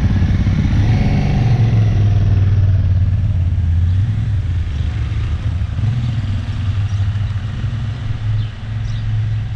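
Adventure motorcycle engine running with a steady low drone.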